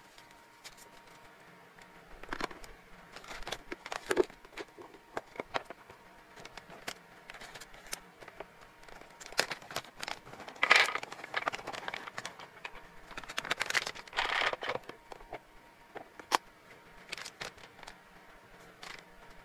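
Hands handling plastic storage containers and a packet of hamster treats on a desk: scattered clicks and taps of plastic, with a few louder bursts of packaging crinkling about halfway through and again a few seconds later.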